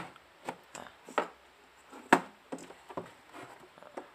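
Clicks and knocks of plastic LED bulbs being handled and swapped in a screw socket, one set down on a wooden bench: a run of irregular sharp taps, the loudest about two seconds in.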